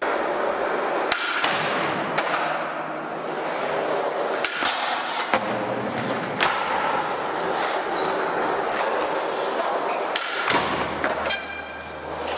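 Skateboard wheels rolling on a smooth concrete floor, with the sharp pops and clacks of the tail snapping and the board landing several times as flatground flip tricks and manuals are done.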